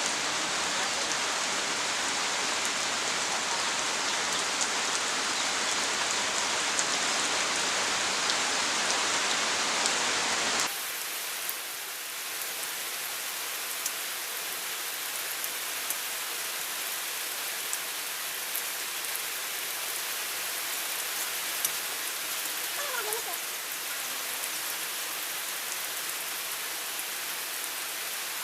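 Heavy rain falling, a steady even hiss with faint scattered drips. About ten seconds in the hiss drops abruptly to a somewhat quieter, thinner rain.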